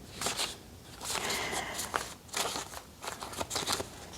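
Paper and stickers rustling and crinkling as they are handled and shuffled, in short irregular scrapes and brushes with a longer rustle about a second in.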